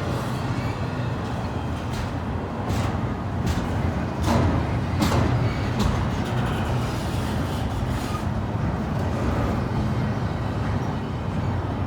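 Freight train rolling by: a steady low rumble of wheels on rail, broken by irregular sharp clanks and knocks from the passing cars.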